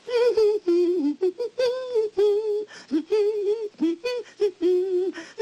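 A single high voice humming a tune: held notes with vibrato and short breaks between them, starting abruptly out of silence.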